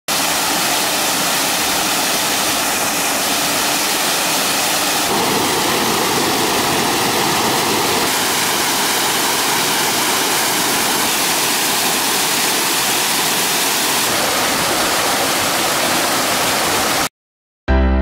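Waterfall rushing steadily as water pours over rocks into a plunge pool, a constant loud roar of white water that shifts slightly in tone twice. It cuts off abruptly just before the end.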